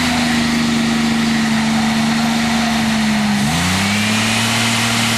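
A 3.8-litre V6 car engine running at high revs with its throttle wedged open by a piece of wood, holding a steady pitch. About three and a half seconds in the revs dip briefly and climb back to a steady high speed.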